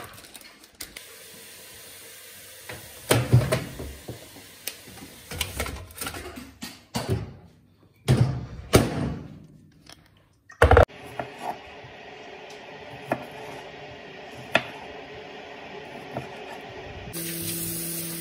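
Kitchen handling sounds: knocks and rustling as a foil tray and packaging are moved about. About ten and a half seconds in, a loud thud as a microwave door is shut, followed by a steady low hum.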